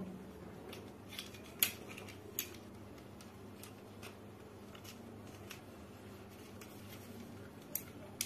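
Scattered sharp clicks of the slide, recoil spring and guide being fitted back onto the frame of a Glock 18 alloy spring airsoft pistol, about six clicks, the loudest about a second and a half in.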